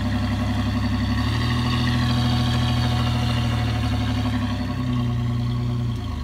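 Vehicle engine running steadily, revving up about a second in, holding the higher revs, then settling back to idle shortly before five seconds.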